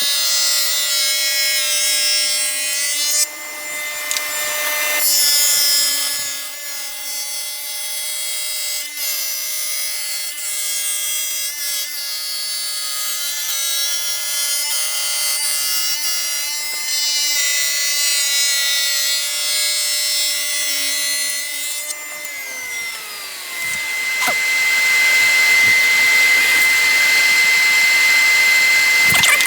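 Table saw fitted with a dado stack running under power and cutting through wood, a steady whine with a rush of cutting noise about three to five seconds in. About 22 seconds in the saw is switched off and its pitch falls as the blades spin down, while a steady high whine carries on and grows louder near the end.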